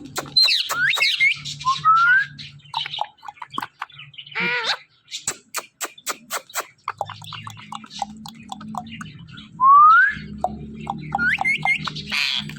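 Pet parrot whistling short rising notes and chirping. There is one harsher call a few seconds in, a run of sharp clicks around the middle, and another rising whistle near the end.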